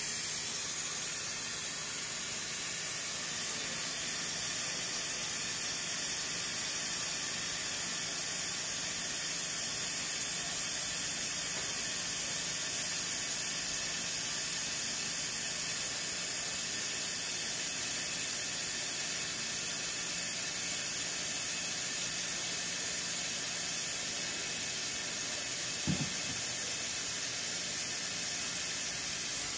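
Haas VF-0E CNC vertical mill running a program, its spindle milling a block clamped in a vise, heard as a steady hiss with a faint low hum. There is a brief low thud near the end.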